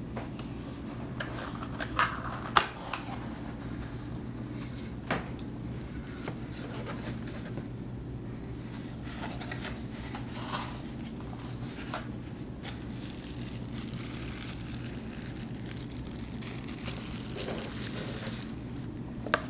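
Cardboard pizza box and paper packaging being handled and opened: rustling and crinkling, with a couple of sharp knocks a few seconds in, over a steady low hum.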